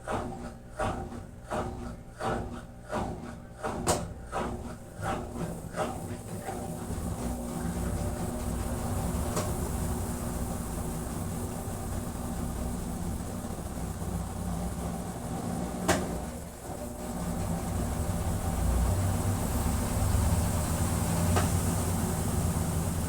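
Consul CWB09BB 9 kg agitator washing machine running: a regular pulsing about twice a second fades out over the first six seconds, then a steady rush with a low hum and a few sharp clicks.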